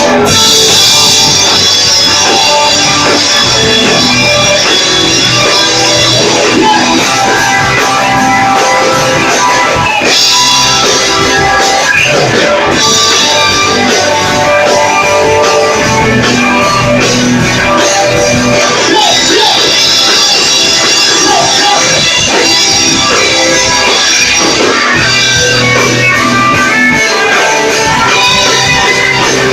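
Rock band playing live, with guitars over a drum kit.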